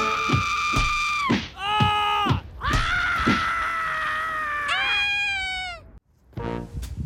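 Beagle howling: a long held howl, a few short yelps, then a second long howl that ends in a falling call and stops about six seconds in.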